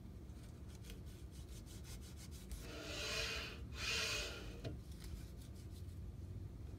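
A paper strip, used as a feeler gauge, rubbing as it is drawn through the narrow gap between a 3D printer's gantry and frame. There are two short swishes about three and four seconds in, with light handling ticks around them. It is a check of the gantry-to-frame clearance while the gantry is being aligned.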